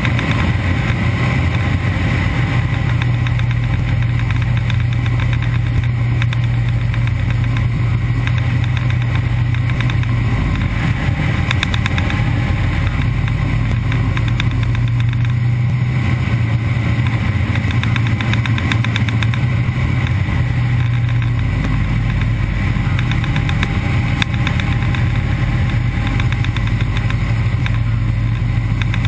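De Havilland Canada DHC-2 Beaver's Pratt & Whitney R-985 nine-cylinder radial engine and propeller droning steadily, heard from inside the cockpit during the descent to a water landing.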